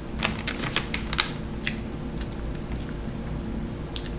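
Food product package crackling as it is picked up and handled: a quick run of sharp clicks in the first second or so, then a few scattered ones.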